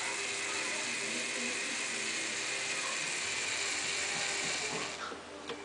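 Plastic gears of a LEGO Technic truck model's gearbox and drivetrain turning, a steady whirring, ratcheting clatter that stops about five seconds in, followed by a couple of light clicks.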